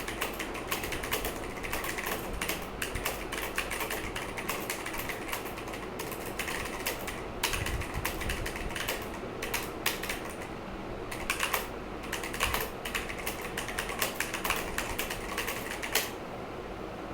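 Typing on a Cosmic Byte Black Eye mechanical keyboard with clicky blue switches: fast, irregular key clicks that stop about a second before the end, leaving a steady hiss.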